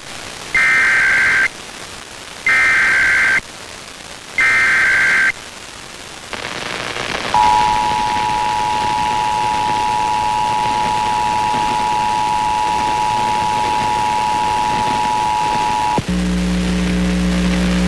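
Emergency Alert System header received over FM radio: three one-second bursts of warbling digital data tones, then a moment of radio hiss, then the two-tone attention signal sounding steadily for about nine seconds before it cuts off. A low steady hum follows for the last two seconds.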